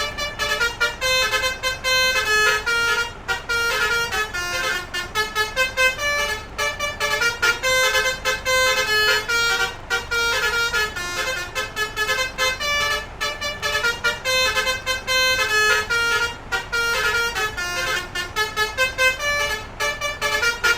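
A bus's Basuri 'telolet' multi-trumpet horn playing a fast tune of short tooted notes at changing pitches, the phrase repeating about every three seconds.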